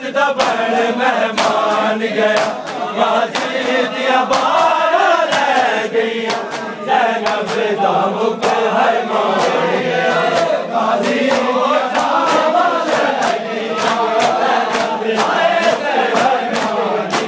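A crowd of men chanting a noha in unison while beating their chests with open hands (matam). The slaps land in a steady, repeating rhythm under the chant.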